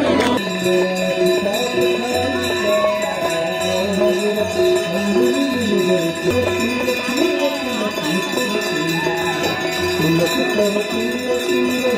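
Music cuts in abruptly just after the start: a steady drone of held tones under a melody that slides up and down, with light rhythmic jingling percussion.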